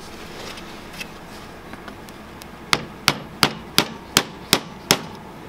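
A hammer tapping on a wooden strip held against the bare cylinder head of a Yamaha Warrior 350 during its top-end rebuild: seven quick, sharp taps at about three a second, starting about halfway through.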